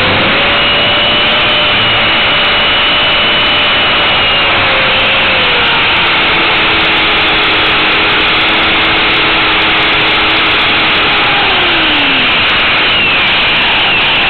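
Onboard sound of an Align T-REX 450 Pro electric RC helicopter in flight: loud rushing rotor wash over a steady motor and gear whine. About twelve seconds in, the whine falls in pitch as the helicopter comes down onto the ground.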